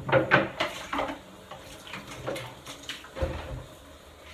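Kitchenware knocking and clinking at a sink: a quick run of sharp knocks in the first second or so, a few scattered ones after, and a dull thump about three seconds in.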